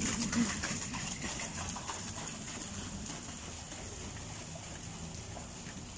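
Children's rubber rain boots splashing through shallow water on a flooded street as they run, the splashes fading as they get farther away.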